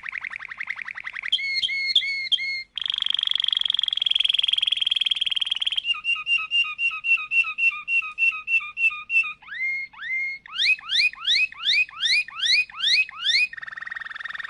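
Domestic canary singing a long song of rapidly changing phrases: a fast trill, a buzzy held phrase, a run of quick repeated notes, then a series of rising whistled notes about three a second.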